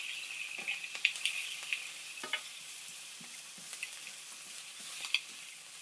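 Kale flowers sizzling in oil with ginger, garlic and a little soy sauce in a frying pan, stirred with a wooden spoon. There is a steady hiss with a scatter of light clicks and scrapes as the spoon works against the pan.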